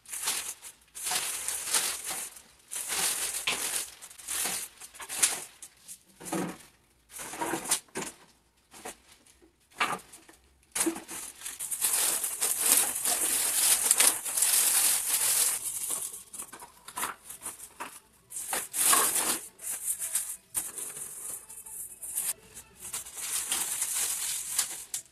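Recyclable plastic, cardboard and paper being handled and put into a bag: crinkling and rustling in irregular bursts with short pauses, busiest around the middle.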